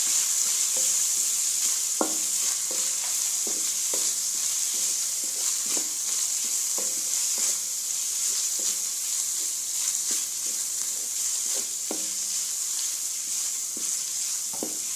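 Minced beef frying in oil in a metal pan, sizzling steadily with its chilli and turmeric just stirred in. A wooden spatula stirs and scrapes through it, knocking against the pan about once or twice a second.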